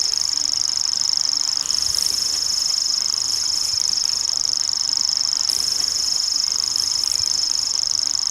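Common grasshopper warbler reeling: one long, steady, high-pitched, insect-like trill made of very fast pulses.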